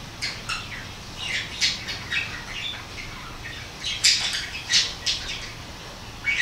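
Short, high-pitched bird calls, irregular squawks and chirps, coming every fraction of a second. The loudest cluster comes about four to five seconds in.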